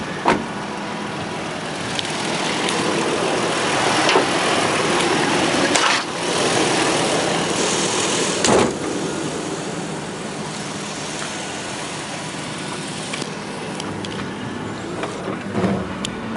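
2008 Toyota Tacoma's 4.0-litre V6 idling steadily with the hood open. It is louder for several seconds in the middle as the engine bay is approached. A few short knocks sound over it.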